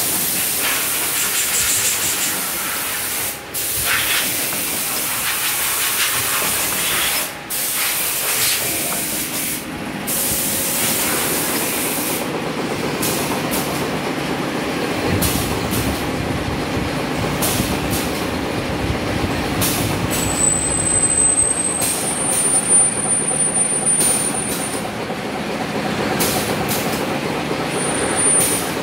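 Servo-fed coil cut-to-length machine with a pneumatic cutter running, with a steady hiss and clatter of machinery as the sheet is fed through. There are short breaks in the noise early on, sharper clicks later, and a thin high whine from about two-thirds of the way through.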